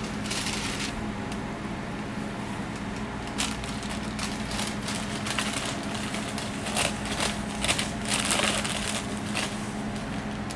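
Paper wrapper rustling and crinkling as a folded whipped-cream waffle is wrapped by hand, in uneven rustles that are loudest in the second half. A steady low hum runs underneath.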